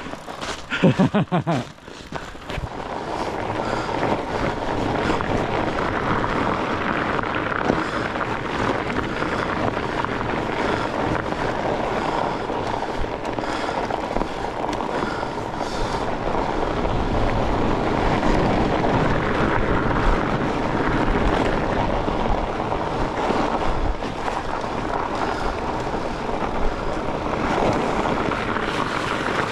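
Steady rushing rumble of a fat bike ridden over a frozen, rutted winter trail, with wind rushing over the camera microphone. A short pitched sound about a second in is the loudest moment.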